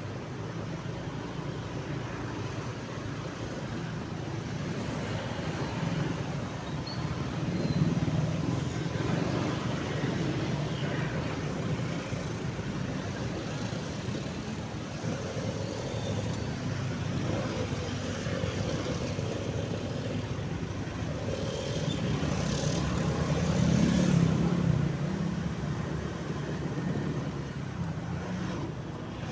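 Road traffic: motor vehicles running, a steady rumble of engines and tyres that swells and eases as vehicles pass.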